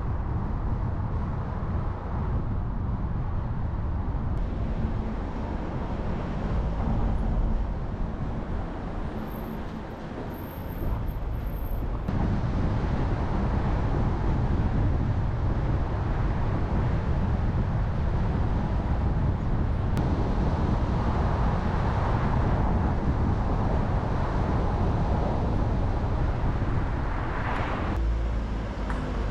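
A car driving along a road: steady engine and tyre noise, dipping slightly about ten seconds in before settling again.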